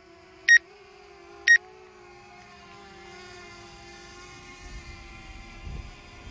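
Two short electronic beeps about a second apart, then the steady, high-pitched hum of a DJI Mavic Air quadcopter's propellers as it climbs after takeoff, growing slightly louder.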